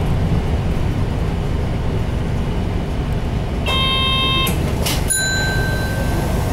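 Running sound inside a Mitsubishi Fuso Aero Star city bus: its six-cylinder 6M70 turbodiesel and the road give a steady low rumble. About four seconds in, a short ringing electronic chime sounds, and a second later a higher tone rings on to the end.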